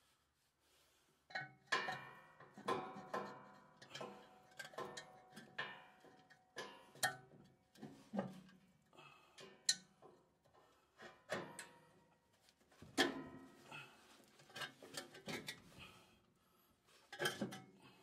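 Irregular metal clinks and knocks with short ringing, from steel parts and a hand tool being worked on a two-stage snowblower's auger shaft as parts are fitted back onto it.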